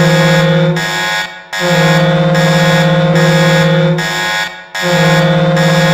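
Ice hockey goal horn (HC Sochi's recorded horn) sounding in long, low, loud blasts of about two and a half seconds each. One blast ends about a second in, the next follows half a second later, and a third begins near the end.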